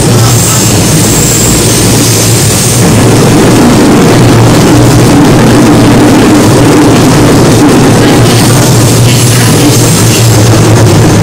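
Running sound of a JR West 207 series electric commuter train heard inside a passenger car: a loud, steady mix of traction-motor hum and wheel-on-rail noise, which grows a little louder about three seconds in.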